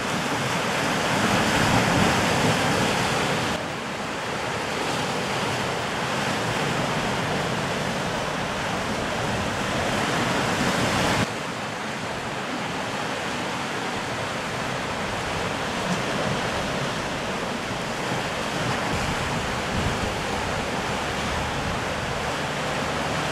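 Surf: ocean waves breaking and washing against volcanic shore rocks, a steady rush of water that drops abruptly in level twice.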